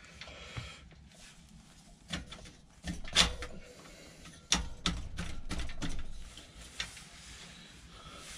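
Metal pannier rack parts being fitted onto a mountain bike's rear frame by hand: a series of irregular clicks and knocks with handling rustle. The loudest knock comes a little after three seconds in, and a quick run of them follows between about four and a half and six seconds.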